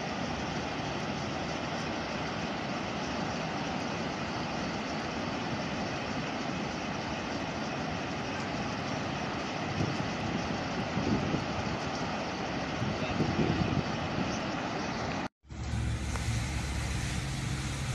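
Floodwater pouring over the overflowing Zerdan Dam spillway: a steady rush of water. Near the end it cuts off abruptly and gives way to a car engine's low hum heard from inside the cabin.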